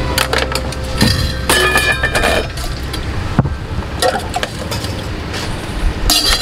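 Stainless-steel spoons and plates clinking, with sharp clicks and a few brief metallic ringing tones, over a steady rumble of street traffic.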